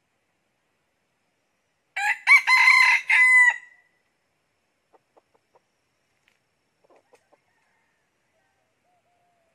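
Decoy junglefowl rooster crowing once, about two seconds in: a crow of several syllables lasting under two seconds, ending on a held note. A few faint clicks follow.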